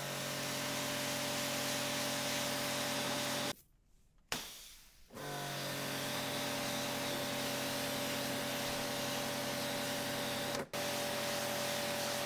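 Electric pressure washer running: a steady motor hum under the hiss of the water jet. The motor cuts out about three and a half seconds in as the trigger is let go. A sharp click follows, and about a second and a half later the motor starts up again and runs on, with a brief drop near the end.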